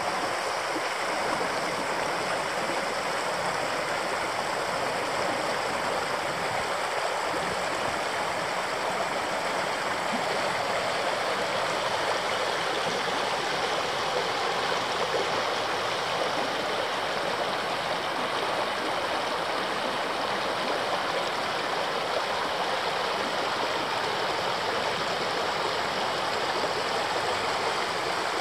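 The River Swale running shallow and fast over a stony riffle: a steady sound of water rushing and babbling over stones.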